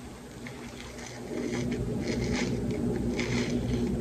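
Soft crackling and squishing as an airy, meringue-like cloud bread is torn apart by hand. About a second in, a steady low hum starts and becomes the loudest sound.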